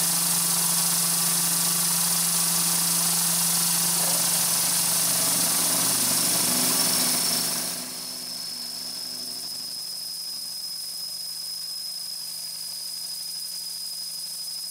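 Tormach PCNC 1100 mill drilling half-inch aluminium plate with a twist drill, under a steady hiss of compressed air from the Fog Buster mist coolant and a steady low hum. About halfway through the hiss drops and a thin, high, steady whine carries on.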